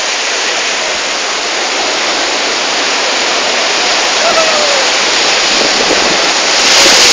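Sea surf breaking and washing over shoreline rocks: a steady, loud roar of waves that swells as a bigger wave breaks near the end.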